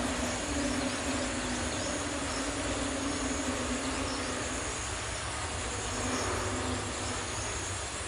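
Steady outdoor background hiss with a faint low drone that comes and goes.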